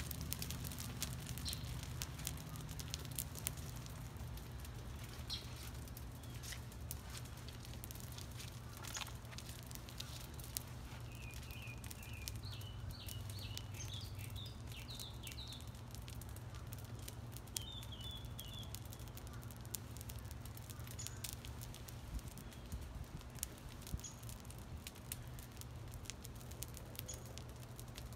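Burning basketball crackling and popping, with many small irregular ticks over a low steady hum. A bird chirps a few times around the middle.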